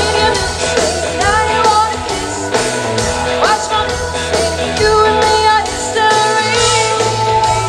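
Live pop-rock band with a woman singing the lead into a handheld microphone over keyboard and electric guitar, amplified through a concert sound system.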